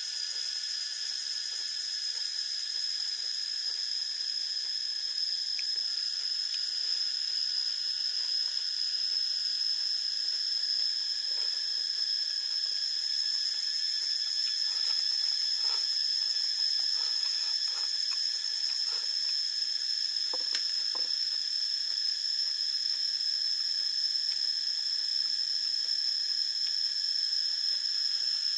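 Insect chorus, likely cicadas, giving a steady high-pitched whine without a break. Faint soft clicks and mouth sounds of eating come and go in the middle.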